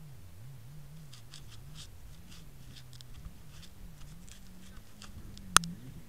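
Jet ski engine running at low revs, heard muffled as a low hum that wavers up and down in pitch, with light ticks over it and one sharp knock near the end.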